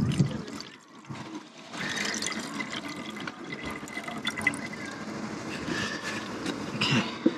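Water poured from a plastic measuring jug into a car's coolant expansion tank, a steady filling trickle from about two seconds in, with a sharp knock near the end.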